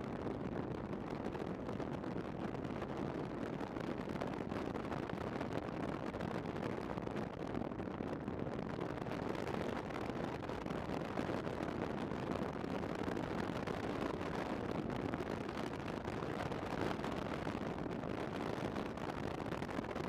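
Motorcycle riding at a steady cruising speed: a steady rush of wind over the microphone with the engine and tyre noise blended beneath it.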